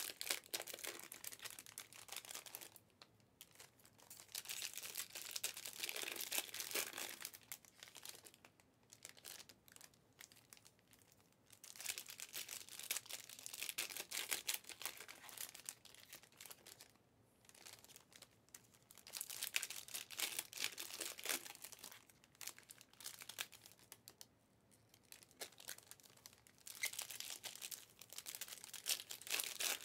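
Trading card pack wrappers being torn open and crinkled by hand, in several bursts of crackling a few seconds long with short pauses between.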